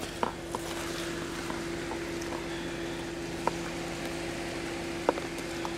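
A steady low hum held at one pitch, with a few faint sharp clicks over it, one about a quarter second in and others near three and a half and five seconds.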